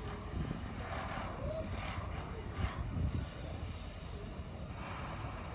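Roadside traffic noise with wind rumbling on the microphone and a few brief rushing swells.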